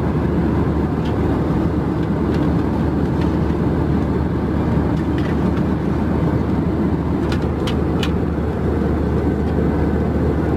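Steady cabin roar of an Airbus A320-200 in flight: engine and airflow noise, heavy in the low end and even in level throughout. A few faint ticks come about three-quarters of the way through.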